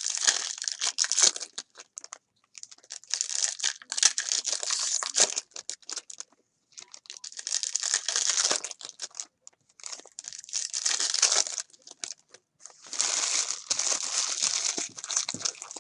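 Trading-card pack wrappers crinkling and tearing as packs are ripped open by hand, in five crackly bursts of two to three seconds each with short pauses between.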